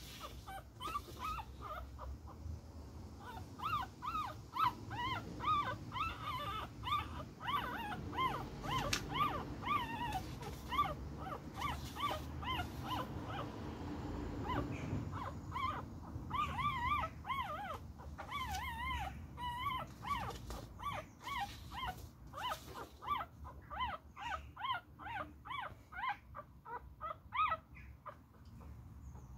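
A tiny beagle puppy whimpering and squeaking over and over in short, wavering high-pitched cries. The cries come faster near the end.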